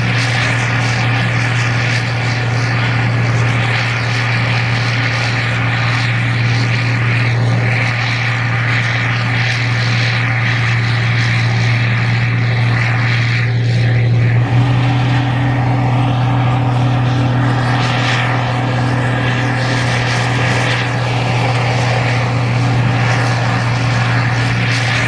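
Gleaner R52 combine's engine and machinery running steadily under harvesting load, a loud continuous drone. The tone shifts slightly about halfway through.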